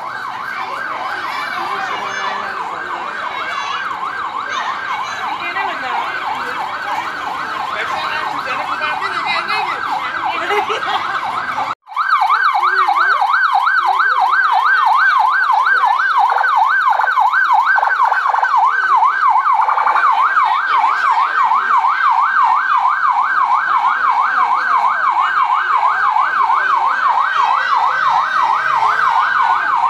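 Electronic siren in a fast yelp, its pitch sweeping up and down several times a second. It breaks off for an instant about twelve seconds in and then carries on.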